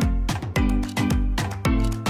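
Background music with a steady beat: deep bass notes about twice a second under bright percussion and pitched instruments.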